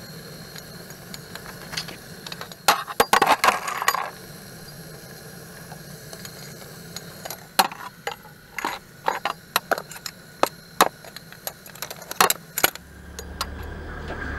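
Sharp metallic clinks and rattles: a dense burst about three seconds in, then scattered single clinks over the next several seconds, with a faint steady hum underneath. A low rumble begins near the end.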